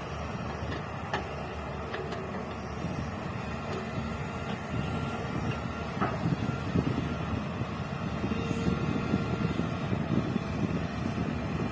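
Excavator's diesel engine running with a steady low rumble, getting louder and rougher about halfway through, with a few sharp knocks.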